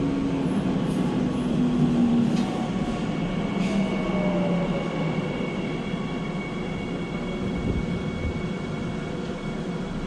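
Seoul Line 3 subway train running, heard from inside the passenger car: a steady rumble and rush of the moving train, with a whine that falls in pitch over the first few seconds and steady high tones above it.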